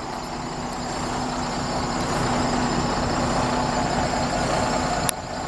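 Heavy diesel semi truck running at idle: a steady rumble with a steady hum through it. There is a single sharp click near the end.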